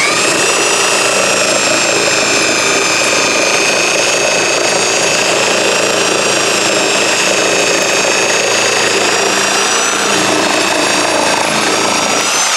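A rebuilt, rewired and freshly greased corded reciprocating saw is switched on and comes up to speed at once. It then runs steadily at full speed with a high motor whine.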